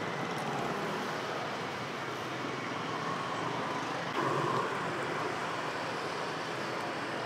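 Steady noise of traffic on a busy street, with a brief louder swell about four seconds in.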